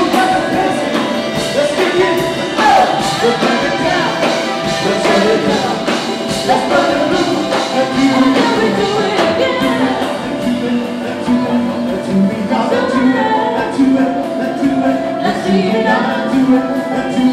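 Upbeat dance-band music with singing over a steady drum beat.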